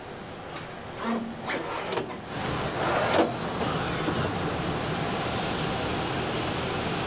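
CNC lathe: a few sharp mechanical clicks and knocks in the first couple of seconds, then the spindle runs up and settles into a steady whir with a faint high tone while the turret tool turns the workpiece.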